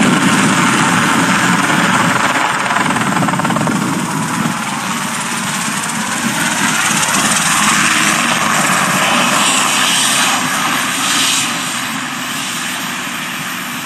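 Robinson R22 piston helicopter's rotor and engine running loud and steady as it flies past and sets down, easing off slightly near the end.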